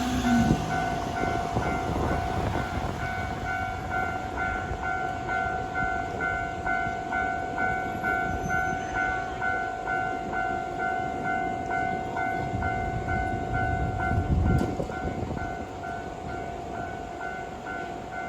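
Japanese level-crossing warning bell ringing in a steady repeating beat as a Keisei 3500 series train passes over the crossing. Its wheels rumble and clack over the rails, loudest at the start and again about fourteen seconds in, before the train sound fades.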